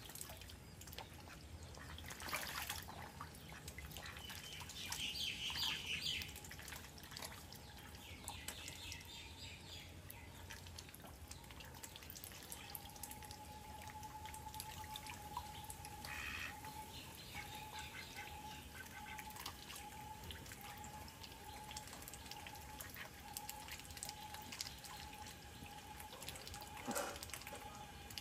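Ducks dabbling and splashing in a small water-filled tank: light splashes and drips of water, with a short high chirp about five seconds in and a faint steady tone in the second half.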